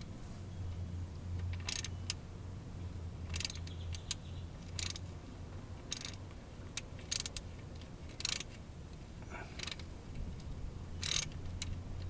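Metal tool clicks and scrapes, irregularly spaced, as a seal puller is worked against the shift-shaft seal of a TH350 transmission to pull it out. A low steady hum runs underneath.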